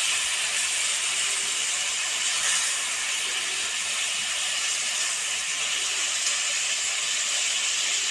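Snakehead fish and potato curry sizzling steadily in a metal pan while a spatula stirs it.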